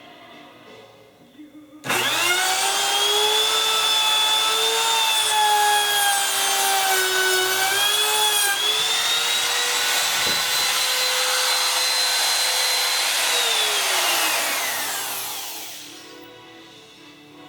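Electric woodworking power tool starting abruptly and running loud with a steady motor whine, its pitch dipping as it bites into the wood. Near the end it is switched off and winds down, the whine falling in pitch as it fades.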